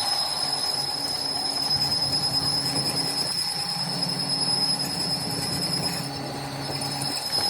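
Factory machinery running steadily: a high metallic whine over a lower hum and clatter, easing briefly about six seconds in.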